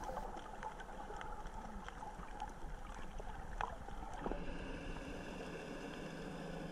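Faint underwater sound picked up by a camera below the surface: a soft wash of water with scattered small clicks. From about four seconds in, a steady low hum joins it.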